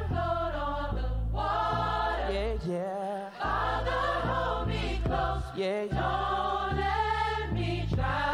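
Gospel choir singing in harmony over a deep bass line, the bass dropping out briefly twice.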